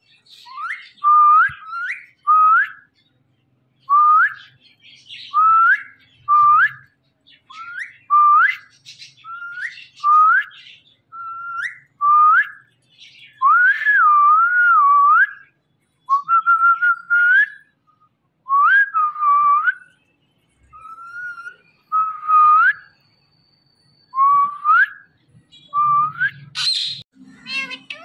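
Indian ringneck parakeet giving a long series of short whistled notes, most sliding upward in pitch, about one a second.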